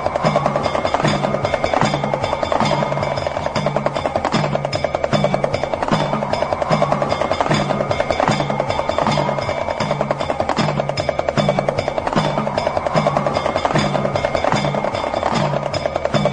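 Damru, the small hourglass drum, rattling in a fast continuous roll as its knotted cords strike the two heads. Under it is a low beat pulsing a little faster than once a second, and a tone slowly rises and falls.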